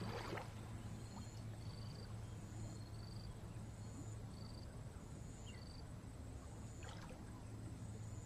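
Quiet outdoor ambience: a steady low hum under a short, high chirp that repeats about every second at two alternating pitches. There is one faint knock about seven seconds in.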